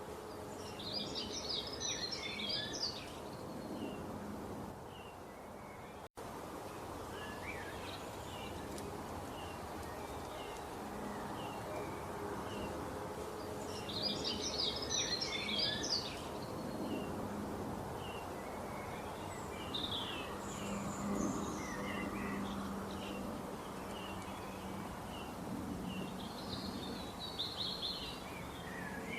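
Small songbirds chirping over a steady background hiss, with a burst of rapid twittering song three times, about twelve seconds apart, and scattered single chirps between.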